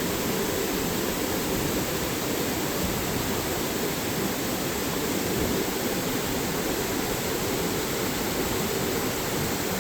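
Waterfall rushing below a bridge, a steady, unbroken roar of falling water.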